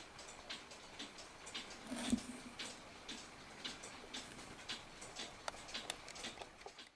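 A mechanical clock ticking steadily, about two ticks a second, with a brief low sound about two seconds in.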